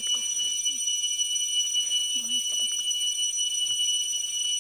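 A forest insect's loud, continuous bell-like ringing call, one steady high tone with no breaks.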